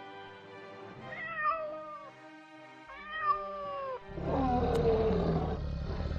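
Domestic cat meowing twice, each a short call that bends up and then falls, over quiet background music. About four seconds in, a louder, rougher animal call with a falling pitch takes over.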